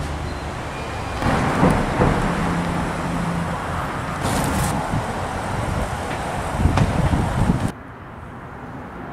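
Car and traffic noise: a rough, loud rumble of vehicles moving nearby, swelling twice, with a brief steady engine hum. It drops suddenly to quieter outdoor background near the end.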